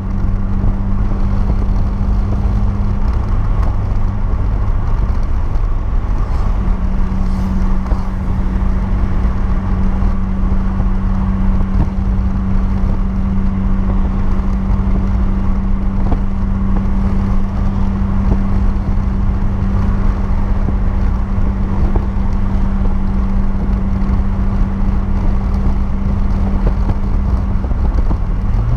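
Renault Clio's 1.6 16V K4M four-cylinder engine pulling at steady revs under way, heard from inside the cabin. Its note holds level, dips briefly about three seconds in, then drops abruptly to a lower pitch near the end.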